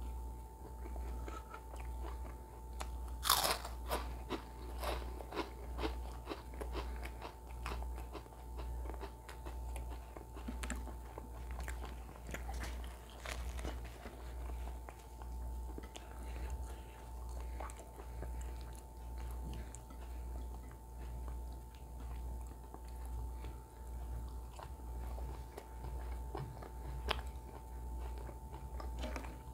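Close-miked chewing of naan dipped in mutton curry, with scattered crisp crunches, the sharpest a few seconds in and most of them in the first half. Under it runs a steady low hum that pulses about once a second.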